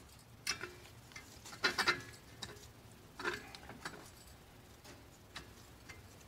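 Light metallic clicks and taps from a 15 mm hub bolt being started by hand while the new front hub bearing assembly is rocked on the steering knuckle. A few scattered clicks, the loudest cluster about two seconds in.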